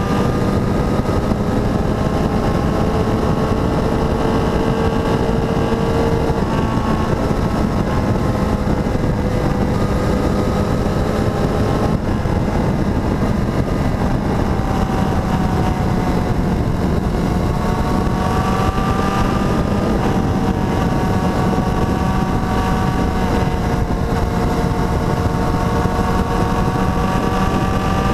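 Motorcycle engine running under way, its note drifting slowly up and down with a couple of abrupt shifts in pitch, over a steady rush of wind on the microphone.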